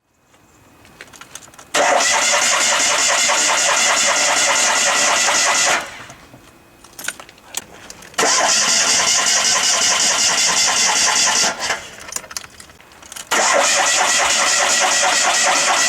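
Fiat 126's air-cooled two-cylinder engine being cranked by its starter motor in three long bursts, with short pauses between them. It does not catch: a cold engine that will not start after standing unused for a long time.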